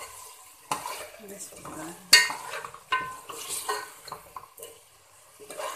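A spoon stirring chicken pieces frying in onion-tomato masala in a steel pot: scraping, with clinks and knocks against the pot, the sharpest about two seconds in, over a faint sizzle.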